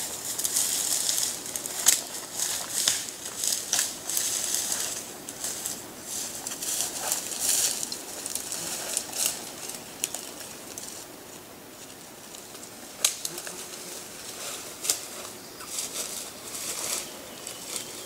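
Rustling and crackling of dry leaves and twigs, with scattered sharp snaps; busy in the first half, thinning out after about ten seconds to a few isolated cracks.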